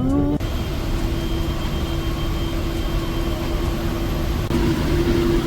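Engine of a heavy glacier tour vehicle running steadily, with a steady whine over the engine noise.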